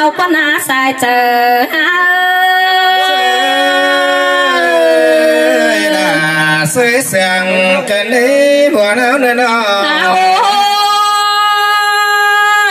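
Tai Dam khắp folk singing by a woman and a man through microphones: long held notes with wavering, sliding ornaments.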